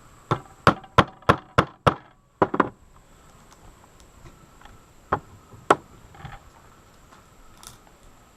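Sharp strikes on a wooden 2x4 board: six evenly spaced blows, about three a second, then a quick cluster of knocks, and two more single strikes a few seconds later.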